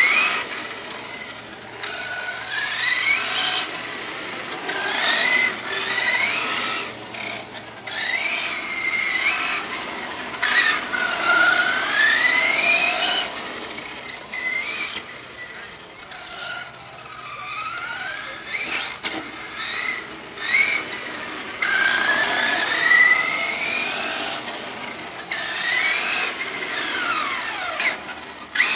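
Electric RC short course truck's motor whining up and down in repeated throttle bursts, a rising whine with each burst of speed and a falling one as it slows. Its 2.8-inch tyres make a rough noise on the concrete driveway.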